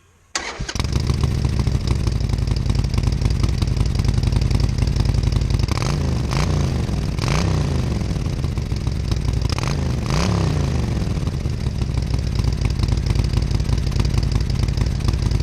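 Harley-Davidson Sportster 1200 Iron's air-cooled V-twin engine, on its stock slash-cut mufflers, starting up within the first second and idling, blipped up and back down three times.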